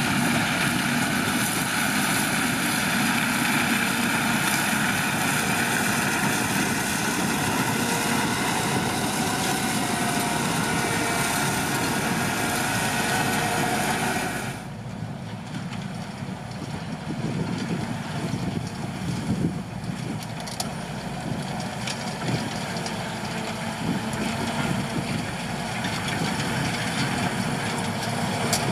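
Heavy farm vehicle engine and machinery running steadily. The sound is loud with a faint held whine for the first half, then drops abruptly about halfway through to a quieter running sound with a few sharp knocks.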